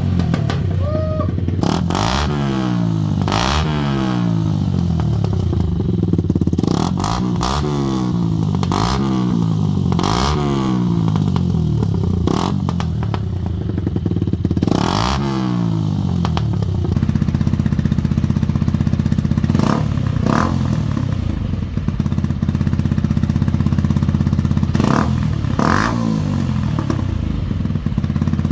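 Yamaha YZF-R125 single-cylinder four-stroke engine being blipped through its exhaust: quick rev-ups and drops about every two seconds, then held at a steady raised rpm for the second half, with a few sharp cracks near the end.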